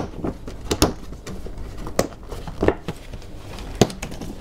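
Paper gift bag handled and tilted open: a handful of sharp rustles and taps from its stiff paper sides and contents.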